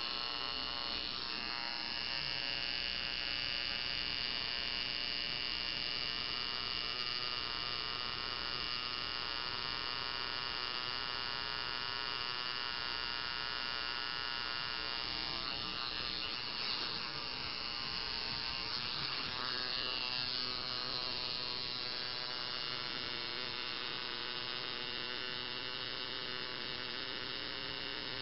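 Coil tattoo machine buzzing steadily as the needle works ink into skin, with the pitch wavering slightly about two-thirds of the way through.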